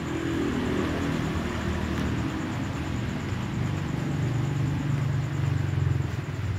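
Domestic cat purring steadily, a low, fast-pulsing purr that grows a little louder in the second half: the purr of a relaxed, comfortable cat.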